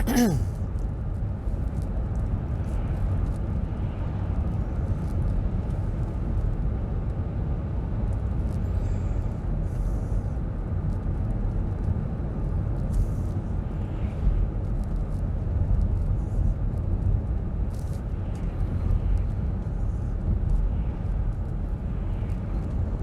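Steady low rumble of a car driving on the road, heard from inside the cabin: tyre and engine noise.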